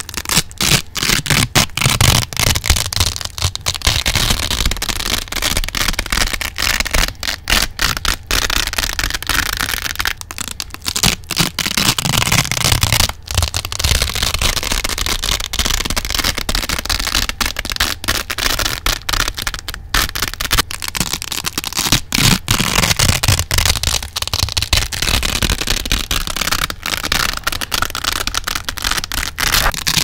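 Velcro hook-and-loop strips being ripped close to the microphone: a continuous crackly tearing with brief breaks.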